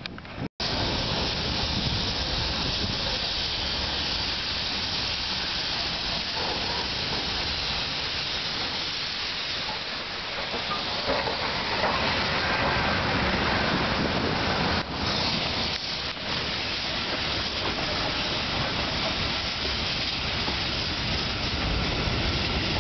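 Soviet steam locomotives, the Er-class Er-797-41 and L-5231, letting off steam: a loud, steady hiss over a low rumble as the engines move along the track.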